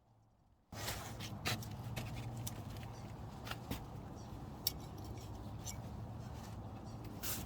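Light clicks and clinks of small brake parts being handled, over a steady low hum; the sound cuts in abruptly under a second in, after near silence.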